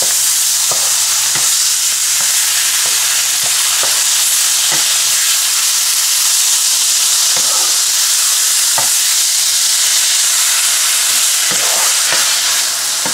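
Ground chicken mince and chopped onions sizzling in oil in a nonstick wok: a steady, loud hiss, with scattered taps and scrapes of a wooden spatula breaking up the mince against the pan.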